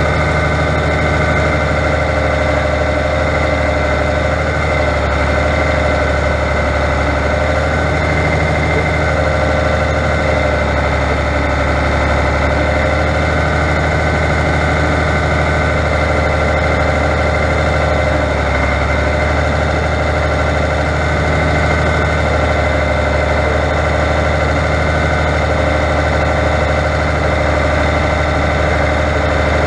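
Fiatagri 100.90 tractor's diesel engine running steadily, close to the microphone, its pitch wavering slightly as it works with the front loader.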